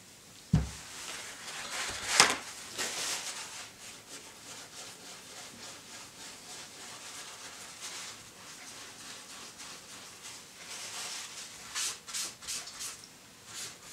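A paper tissue rubbing and wiping over small parts on a tabletop, cleaning them with a spray cleaner that is left to flash off. There is a knock about half a second in and a short sharp sound near two seconds, then bouts of scratchy rubbing.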